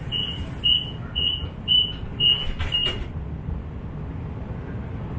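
Inekon Trio streetcar's door warning beeper sounding a high beep a bit under twice a second, stopping about three seconds in with a clatter of the doors closing, over the car's steady low hum.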